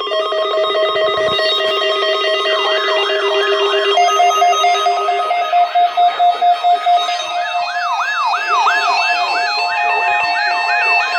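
Several Emergency Alert System alert tones from FM radio broadcasts sounding at once: steady held tones joined, from about two and a half seconds in, by a repeating falling siren-like sweep about two and a half times a second, with a fast pulsing beep briefly in the middle. They signal the start of an Amber Alert child-abduction message.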